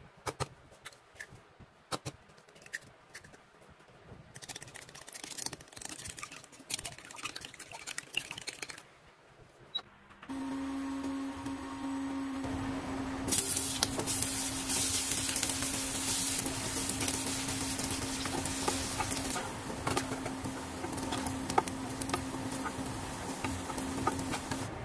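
Light clicks and taps of an egg being cracked and beaten in a glass bowl. About ten seconds in a steady hum and hiss start, and from about thirteen seconds sliced sausages sizzle in hot oil in a frying pan.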